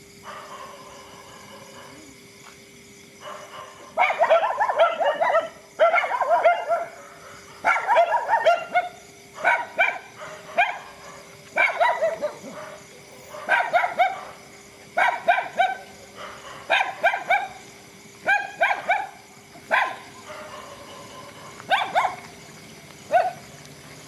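Dogs barking in repeated bouts of several quick barks, starting about four seconds in, one bout every one and a half to two seconds. A faint steady hum runs underneath.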